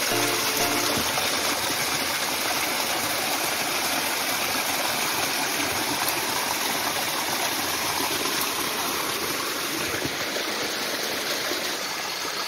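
Water pouring and splashing over rocks in a small waterfall on a rocky river: a steady rushing sound. Faint music fades out in the first second.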